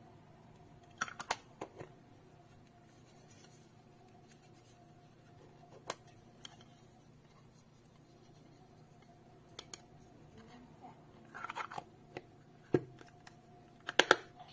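Plastic case of a round water leak sensor being handled, with scattered light clicks and scrapes, and a cluster of sharp clicks near the end as the two halves of the case are snapped shut.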